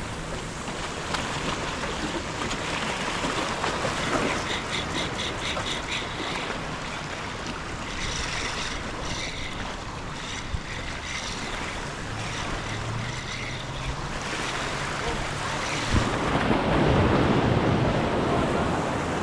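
Ocean surf washing steadily with wind buffeting the microphone, a louder surge of surf about sixteen seconds in.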